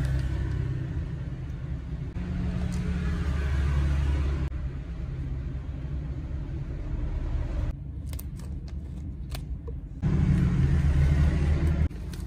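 Foil seasoning sachets of an instant noodle cup crinkling and clicking in the hands, over a loud, steady low rumble whose level jumps up and down abruptly several times.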